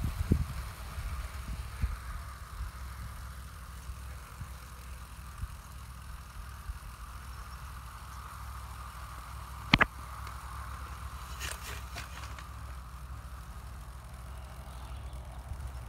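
A model BR 2-8-0 locomotive and its coaches running steadily along the track: a faint motor whine over a low rumble, with a few light clicks early and one sharp click about ten seconds in.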